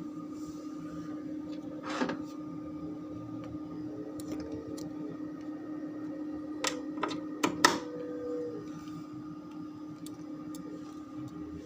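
Steady electrical hum from a switched-on mixer and amplifier setup idling with no music playing, broken by a sharp click about two seconds in and a quick run of clicks and knocks a little past the middle.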